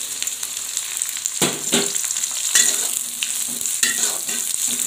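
Sliced shallots with bay leaves, lime leaves, galangal and lemongrass sizzling in hot oil in a wok, a steady high hiss. A metal spatula stirs them, scraping and knocking against the wok several times.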